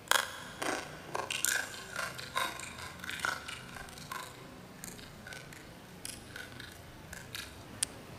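Close eating sounds of boiled crabs being eaten by hand: a quick run of crunches, cracks and wet mouth smacks in the first four seconds, then sparser clicks as shells are picked apart.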